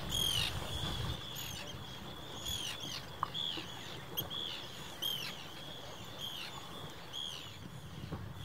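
A seabird calling over and over, a short high call with an arched rise and fall in pitch, roughly twice a second, over a steady low rumble.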